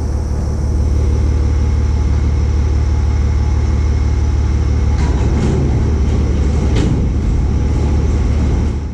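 Tractor engine running steadily, powering a New Holland 853 round baler while its tailgate is lowered shut. There are a couple of light knocks about five and seven seconds in.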